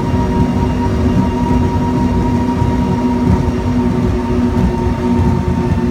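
Twin Teague 825 EFI V8 engines of a Donzi ZR powerboat held steady at about 5,700 rpm, running near 110 mph, with hull and wind rush. A constant, heavy drone with a few steady tones over a dense low rumble.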